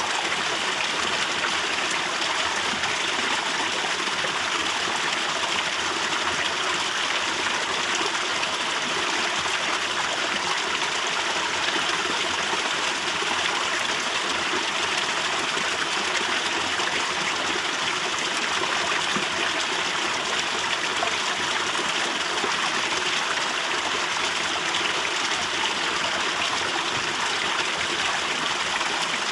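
Water falling and dripping from a canyon cliff into a pool, a steady, even splashing hiss without pauses.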